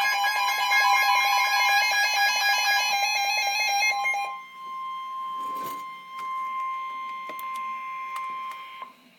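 NOAA Weather Radio 1050 Hz alert tone, the steady high attention tone that comes before a warning broadcast. For about the first four seconds a denser, rapidly pulsing electronic alarm sounds over it. The tone then runs on alone and cuts off shortly before the end.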